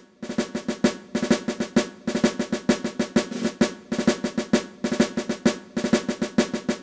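Snare-drum music: a quick cadence of rolls and accented strokes, over a steady low tone.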